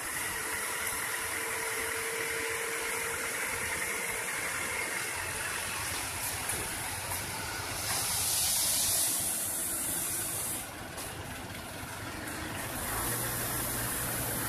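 Road-paving machinery running: the engines of an asphalt paver, a road roller and a dump truck. A loud hiss lasts about two seconds near the middle. A steady low engine hum grows louder near the end.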